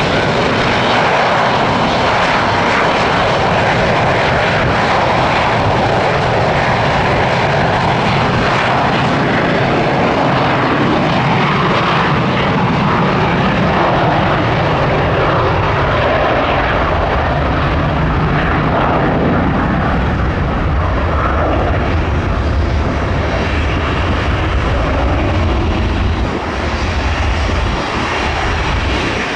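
A McDonnell Douglas 'Mad Dog' jetliner's two rear-mounted jet engines at takeoff power through the takeoff roll and rotation. It is a loud, steady engine noise whose deep rumble grows stronger in the second half.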